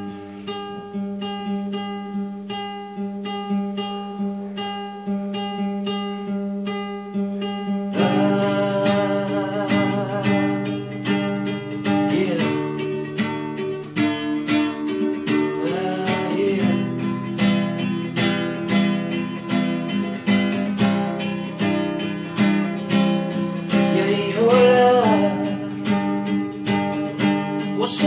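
Nylon-string classical guitar playing a song intro: light, sparse picked notes at first, then fuller and louder strumming from about eight seconds in.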